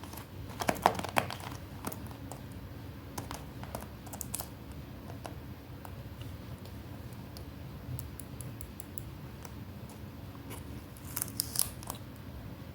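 Paper being handled: scattered light taps, rustles and crinkles at an irregular pace, with a cluster of crisp clicks about a second in and again near the end.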